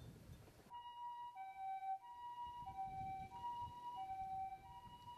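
Japanese ambulance two-tone siren alternating between a high and a low tone, each held about two-thirds of a second. It starts suddenly under a second in.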